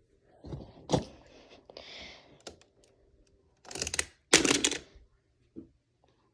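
Hard plastic clicks and clatters from handling magnetic building tiles and small objects dropped into a tile tower. There is a sharp click about a second in and two louder clatters at about four and four and a half seconds.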